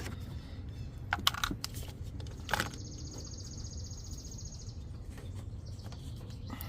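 Jump starter clamps clicking and clanking against the battery terminals as they are fitted, with several sharp clicks in the first three seconds. This is followed by a high, fast-pulsing buzz lasting about two seconds.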